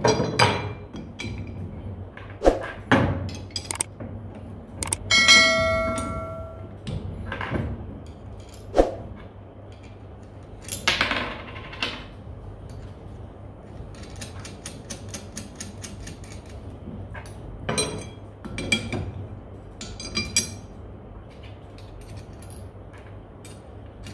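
Steel ridger blades being handled and fitted onto their square blade shaft on a tabletop: scattered clanks and knocks of metal parts. About five seconds in, one blade rings out briefly like a bell, and a quick run of light clicks follows in the middle.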